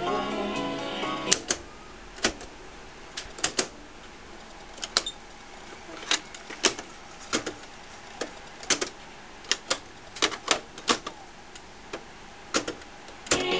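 Mechanical clicks and clunks from a Sharp GF-888 double cassette deck: the tape's sound cuts off with a click just over a second in. Then come about twenty sharp, separate clicks over a low hiss as the transport keys are pressed and a cassette door opens and snaps shut, with a tape lifted out of one deck and loaded into the other.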